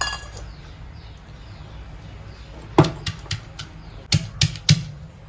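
Shallots being pounded to crush them for their juice: seven sharp knocks in two quick groups, four then three, in the second half.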